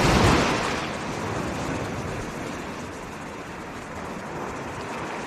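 Small sea wave breaking and splashing on shore rocks, loudest in the first second, then a steady wash of surf.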